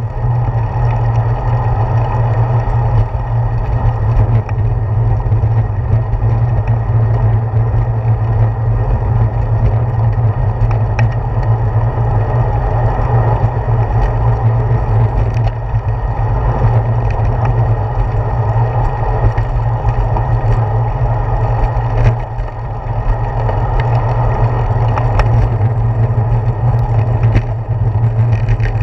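Steady rumble of wind and road vibration picked up by a handlebar-mounted GoPro Hero 4 on a bicycle rolling along a paved path, heaviest in the low end, with a dip about 22 seconds in.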